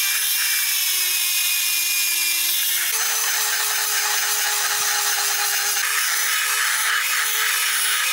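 Handheld rotary tool grinding out the wastegate port of a TD04 turbo's cast-iron turbine housing, enlarging the hole to reduce boost creep. A steady high whine with rasping grit, shifting slightly higher about three seconds in.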